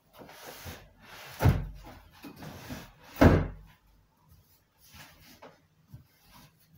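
Wooden folding legs of a homemade pool table being swung shut against the frame: two loud wooden knocks about a second and a half apart, with scraping and rubbing of wood around them and a few lighter knocks near the end.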